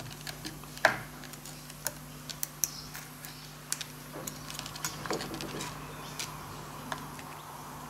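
Irregular small clicks and taps of 3D-printed plastic core box halves being prised open with a small hand tool and handled on a plywood board, to free the sand-and-resin cores; the sharpest click comes about a second in.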